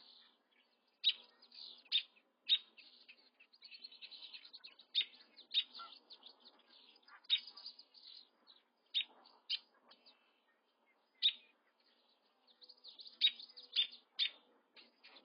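Crane chicks peeping: short, high-pitched chirps at irregular intervals, with fainter chirps in between.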